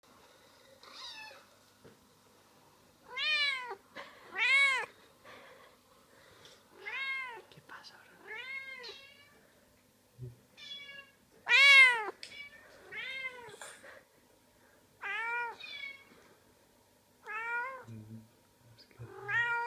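Domestic cat meows, about eleven separate rising-and-falling calls spaced a second or two apart, a house cat answering recorded cat meows played from a computer.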